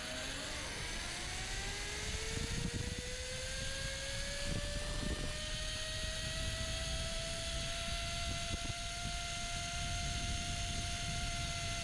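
Zip-line trolley pulleys whining as they run along the steel cable. The pitch rises over the first several seconds as the rider picks up speed, then holds steady. Uneven wind rumble on the microphone runs underneath.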